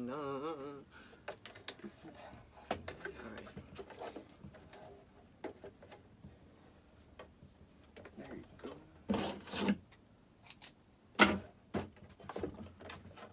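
Hands threading a Singer sewing machine by hand, with small clicks, taps and rubbing of thread and parts. The machine is not running. A few louder knocks come about nine and eleven seconds in.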